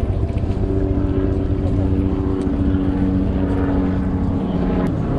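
An engine drone: a steady pitched hum over low rumbling noise.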